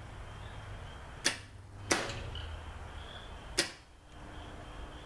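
Transformer from an AC stick welder buzzing under a dead short through a steel spring that glows red hot, with three sharp arcing snaps as the spring burns through. The hum weakens after about the middle.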